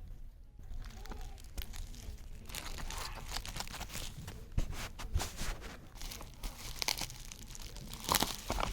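Packaging being handled and opened: irregular crinkling and rustling, with short clicks and taps that get louder near the end.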